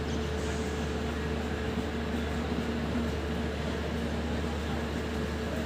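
LHB AC three-tier passenger coaches rolling slowly past as the train pulls out of the station: a steady low rumble with a constant hum running through it.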